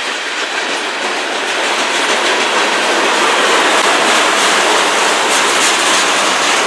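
Freight cars rolling past close by, boxcars and then tank cars: a loud, steady rumble and clatter of steel wheels on the rails, growing a little louder about two seconds in.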